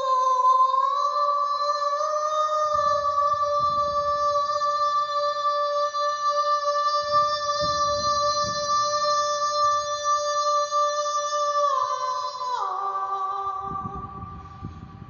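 A singer's voice holding one long, high, steady note for about twelve seconds, then sliding down in a few steps to a lower pitch and fading out near the end.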